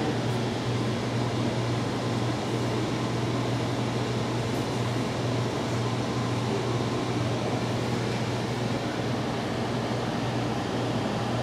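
Steady hum of a building's ventilation system, an even rushing noise over a constant low drone that does not change.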